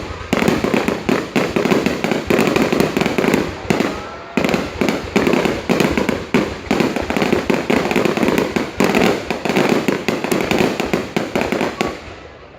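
Fireworks display: a dense, continuous barrage of rapid bangs and crackling, easing briefly about four seconds in and again near the end.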